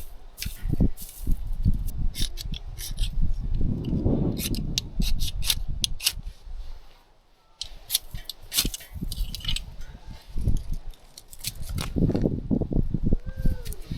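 Dry grass being handled and crushed, giving irregular crackling and rustling with dull thumps from handling, pausing briefly about halfway through.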